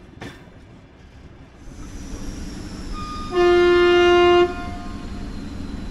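A train horn sounds one steady blast of just over a second, over the running noise of a passenger train's wheels on the track as it rolls into a station.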